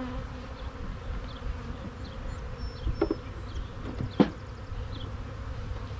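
Honeybees buzzing around an opened hive: a steady hum, with two brief louder sounds about three and four seconds in.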